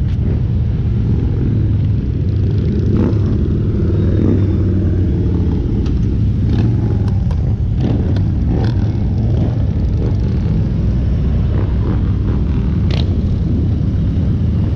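Steady low rumble of running vehicle engines, with motorcycles riding past near the end. A few sharp clicks stand out over it.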